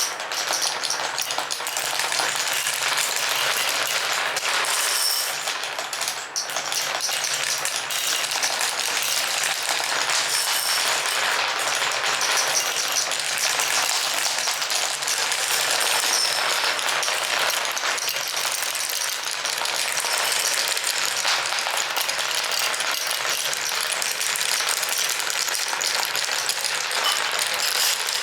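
Many glass marbles rolling and clattering down a marble run: a dense, continuous rattle of small clicks, with brief higher clinks here and there.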